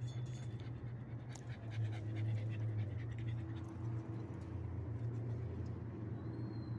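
A black pug panting, over a steady low hum.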